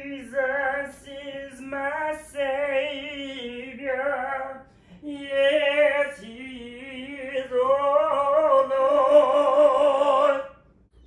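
A single voice singing a slow melody unaccompanied, in phrases with a wavering vibrato, ending on a long held note of about three seconds that stops shortly before the end.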